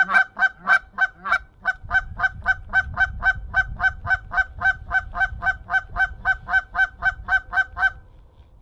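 Goose call blown at approaching Canada geese: a long, very evenly spaced run of short honking clucks, about four a second after a looser start, that stops abruptly near the end.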